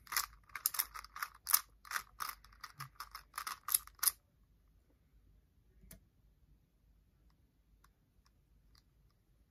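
A 3x3 speedcube being turned fast by hand: a quick run of plastic clicks and clacks for about four seconds. After that only a single click and a few faint scattered ticks remain.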